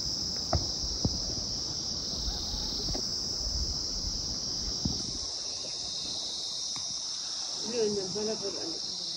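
Steady, high-pitched chorus of insects, with two faint knocks about half a second and a second in and a short voice-like sound near the end.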